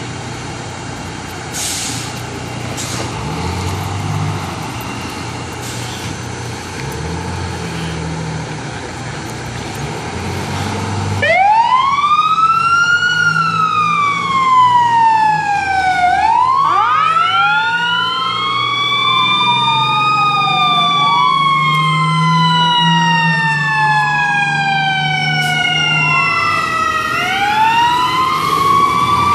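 Fire trucks' diesel engines running as they pull out of the station. About eleven seconds in, sirens start wailing loudly: each rises quickly and falls slowly, and two or three sirens soon overlap.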